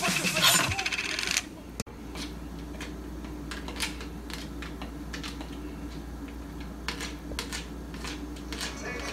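Music with singing stops abruptly about a second and a half in. After that, room tone with scattered light clicks and taps from hands handling an opened plastic jar.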